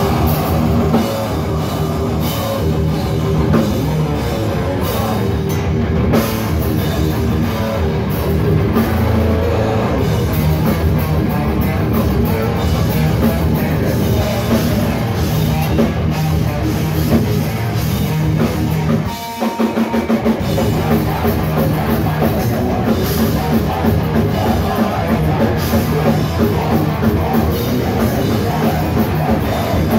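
Live heavy rock band playing loud: distorted electric guitars and a full drum kit. About two-thirds of the way through, the band stops for a split second, then comes back in with choppy stop-start hits.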